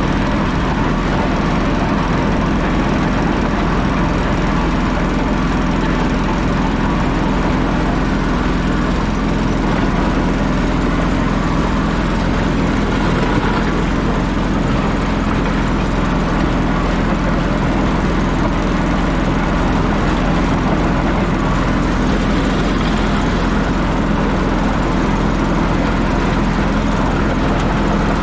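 An engine running steadily, a constant drone that holds the same pitch and level throughout.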